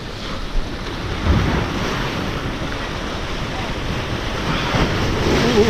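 Ocean surf breaking and washing over jetty rocks, a steady rush with a heavier surge about a second in, with wind buffeting the microphone.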